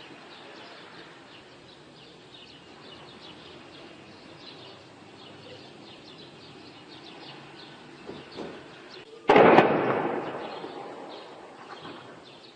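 A single explosion from shelling about nine seconds in: a sudden heavy blast followed by a rumbling echo that dies away over about three seconds.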